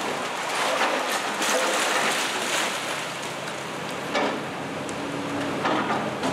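Komatsu excavator with a demolition grapple tearing into a building's upper wall: a continuous clatter of crunching, splintering wood and falling debris, with sharp cracks about four seconds in and again near the end, over the hum of the machine's engine.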